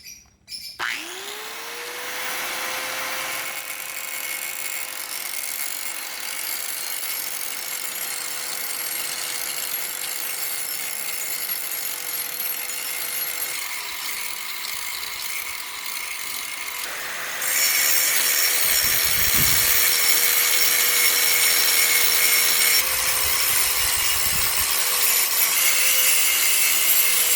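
Electric grinder spinning up, then grinding the edge of a motorcycle disc brake rotor with a steady high whine over a harsh hiss. The hiss gets louder about two-thirds of the way through. The grinding trims the disc down so that it clears the caliper.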